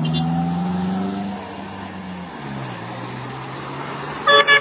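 Car engine running on the road, its note dropping about two seconds in, then two short horn toots near the end.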